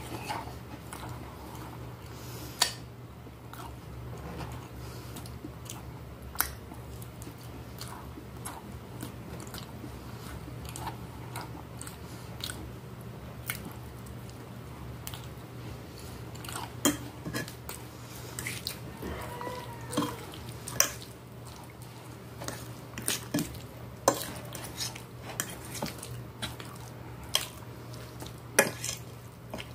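Close-up chewing of a meal of rice, beef and potato, with a fork clicking and scraping on a glass plate in sharp, scattered clinks.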